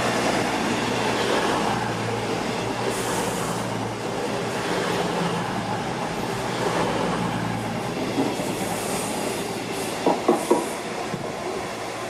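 Cross Country Class 221 Super Voyager diesel multiple unit passing through at speed: its underfloor diesel engines run steadily under wheel and rail noise, slowly fading as it moves away. About ten seconds in, the wheels clack sharply over rail joints.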